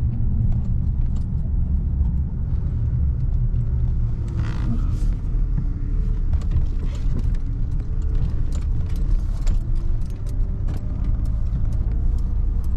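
A car or truck driving, heard as a steady low rumble with many scattered small ticks and rattles.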